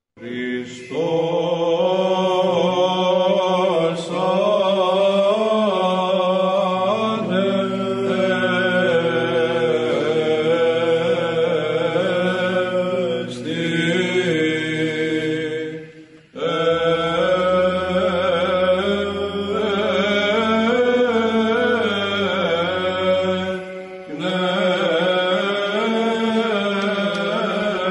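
Byzantine chant: a sung melody moving over a steady held low drone (ison), in two long phrases broken briefly about halfway through.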